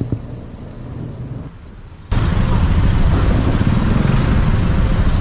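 Riding on a motorbike in city traffic: engine, tyre and wind noise. About two seconds in, the sound jumps abruptly to a loud, steady low rumble.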